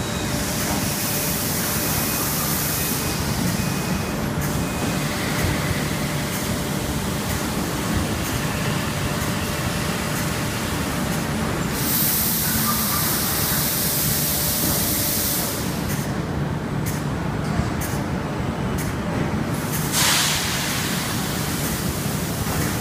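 Machinery of an automated sand-core-making line running with a steady hum, broken by bursts of compressed-air hiss: one of a few seconds near the start, a longer, louder one about halfway through, and a short one near the end.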